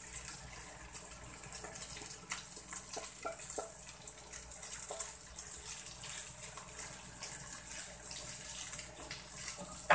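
Cooked rice sizzling as it fries in hot oil and crab fat in a frying pan, with a steady high hiss. A wooden spoon knocks and scrapes now and then against the bowl and the pan as the rice is scraped in and stirred.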